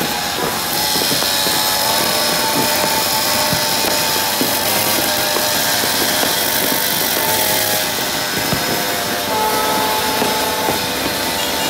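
Continuous din of New Year's Eve fireworks and firecrackers going off all around, many small bangs and crackles over a steady roar, with a few held tones coming and going over it.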